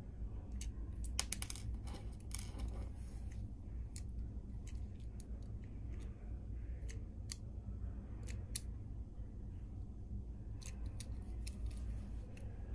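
Digital caliper being handled: its steel jaws slide and click against small 3D-printed plastic parts, giving a flurry of sharp clicks and scrapes early on, then single clicks spaced out, with a few more near the end. A steady low hum runs underneath.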